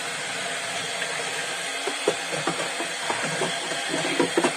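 Kitchen tap running steadily into a sink during dishwashing, a continuous hiss with a few light knocks of dishes.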